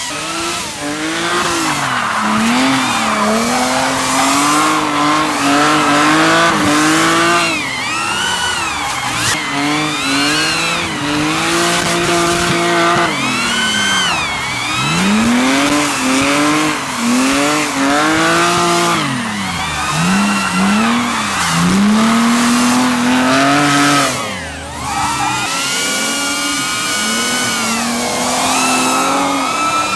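Drift car engines revving up and down over and over, with tyres squealing as the cars slide.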